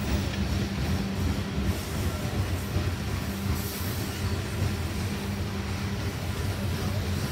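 Freight train of coal hopper cars rolling past, a steady low rumble of steel wheels on the rails.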